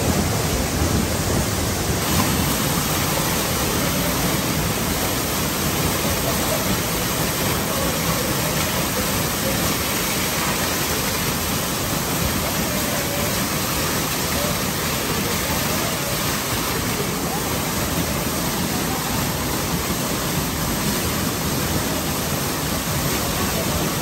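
Waterfall pouring into a rock pool: a steady, loud rush of falling water.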